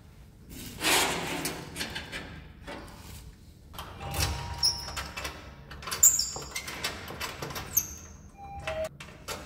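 Office door being unlocked and opened by hand: a rush of noise about a second in, then scattered clicks and knocks of the lock, handle and door, with a few short high-pitched tones near the end.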